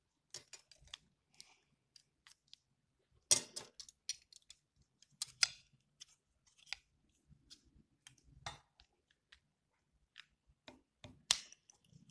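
Scissors cutting plastic drinking straws: a series of sharp clicks and snips, the four loudest a few seconds apart, with lighter clicks of the straws being handled on a hard tabletop.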